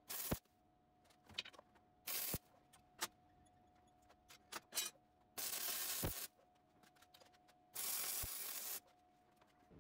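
Welding arc struck twice in short bursts of about a second each, a harsh crackling hiss, as a round bar is tack-welded into a hole in a steel flat bar. Before them come a few sharp clicks and knocks of metal being handled and pressed into place, over a faint steady hum.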